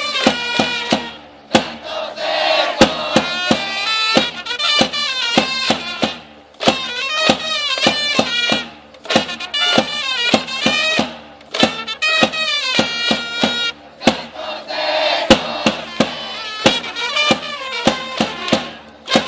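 A Japanese pro baseball cheering section's trumpets play a batter's cheer song over a steady, regular drumbeat. A large crowd in the stands chants the lyrics along with it.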